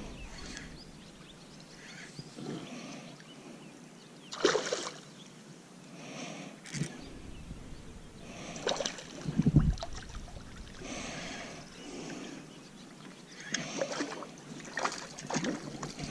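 Water splashing and sloshing in irregular bursts as a hooked small smallmouth bass thrashes at the surface while being reeled in.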